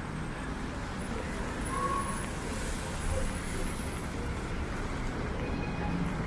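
Steady city traffic noise: cars passing on a rain-wet street.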